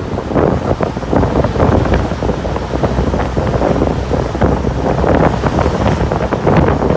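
Wind blowing on the microphone, loud and gusty.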